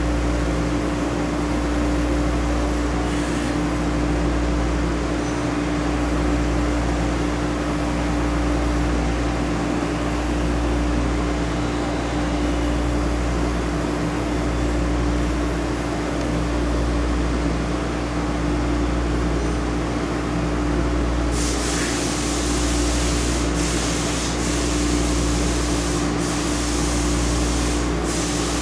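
ANCA CNC tool grinder grinding an end mill under a coolant spray: a steady machine hum with a constant tone over a slow, regular throb. About 21 seconds in, a louder hiss joins.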